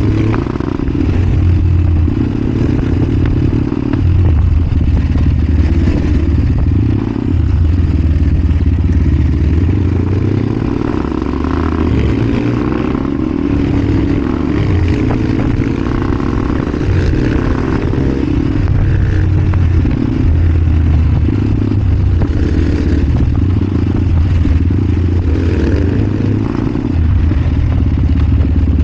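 Supermoto motorcycle under way, its engine running steadily with a heavy low rumble and the engine note rising and falling with the throttle, climbing in pitch for several seconds near the middle.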